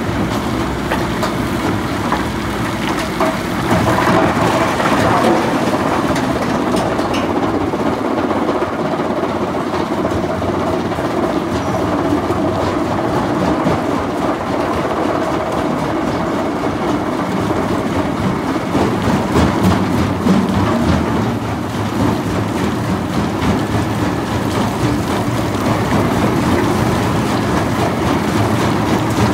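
Komatsu BR380JG-1 mobile rock crusher running: its 187 hp turbo diesel and vibrating grizzly feeder make a steady heavy rattle, with rock clattering as a loader bucket tips it into the hopper and it is shaken along the feeder.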